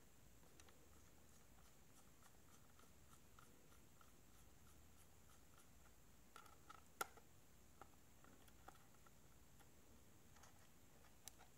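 A precision screwdriver driving a tiny screw into an iPad glass digitizer's frame: a run of faint ticks, about three a second, then a few sharper clicks, the loudest about seven seconds in.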